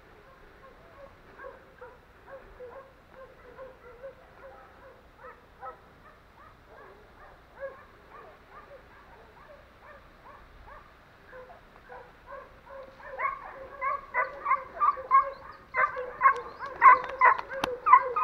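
Hunting dogs barking and baying on a wild boar drive, a rapid run of barks that are faint at first and grow much louder about two-thirds of the way in.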